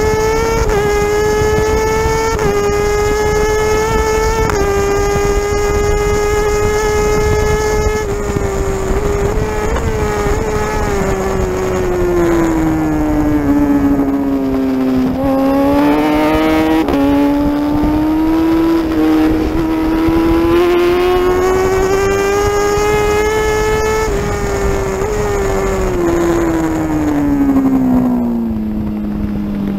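Superbike engine running at high revs at full throttle, heard from on board with wind rush. It shifts up quickly in the first few seconds, then drops in pitch as the rider brakes and downshifts. About halfway it rises again as the bike accelerates out of the corner, and it falls once more near the end under braking.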